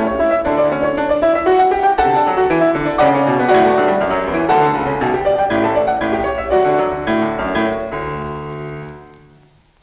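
Solo keyboard music: a quick classical passage of many short notes, ending on a held chord that dies away about nine seconds in.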